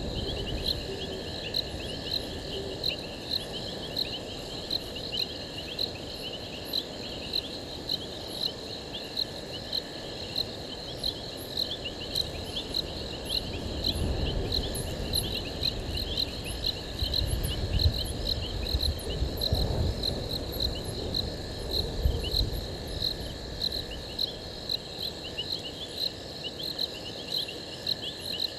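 Crickets chirping in a steady rhythm, about two high chirps a second, over a constant insect trill. Low rumbling swells up in the middle and is the loudest sound.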